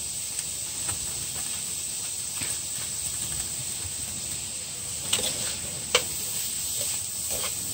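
Tofu and onions frying in oil in a pan: a steady sizzling hiss, with two short sharp clicks about five and six seconds in.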